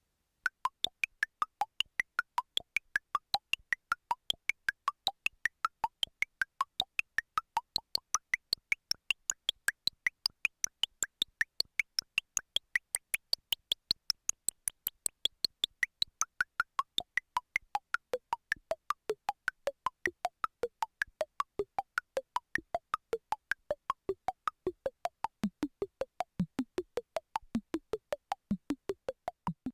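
Roland Super Jupiter (MKS-80) analogue synthesizer sound effect: a fast, even train of short pitched blips, about four or five a second, whose pitch drifts up and down in slow waves. It starts just after the beginning and stops at the very end.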